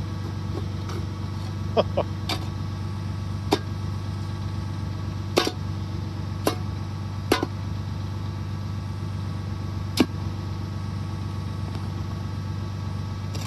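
Tractor engine running steadily while driving a post hole auger through frozen, rocky ground, with sharp scattered knocks, about eight of them, as the auger bit strikes rocks and brick.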